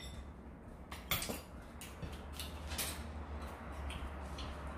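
Eating utensils clinking and tapping against ceramic bowls and a plate as a meal is eaten: a handful of separate light clicks over a steady low hum.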